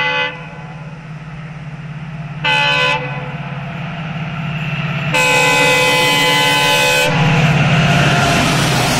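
Diesel locomotive of an approaching passenger train sounding its air horn: a blast that ends just after the start, a short toot about two and a half seconds in, and a longer blast of about two seconds from five seconds in, over the steady drone of its engine. Near the end the rush of the locomotive passing close by takes over and grows loud.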